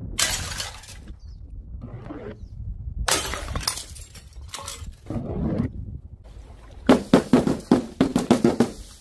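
Glass jars of coloured powder smashing on paving tiles with a sharp crash of breaking glass, the loudest about three seconds in. Near the end comes a quick run of about ten thuds as balls drop and bounce on a board.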